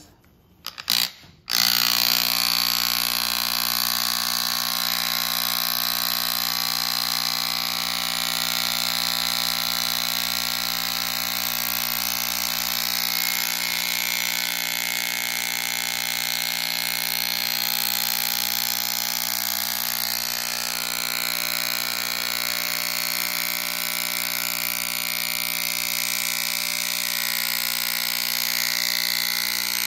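Handheld electric vibration massager switched on about a second and a half in, then buzzing steadily as it gives fine vibration to the face.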